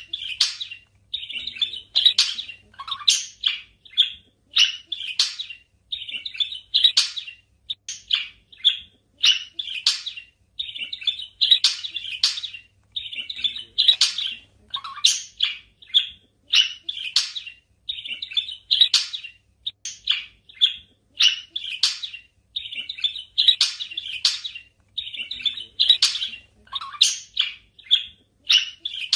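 Budgerigars chirping and chattering: a steady stream of short, sharp chirps and warbles in quick runs, with only brief gaps between them.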